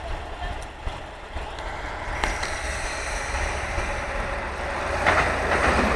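Heavy diesel engine running under load as a semi-truck is moved up a ferry landing ramp, a steady low rumble that grows louder about two seconds in and again near the end.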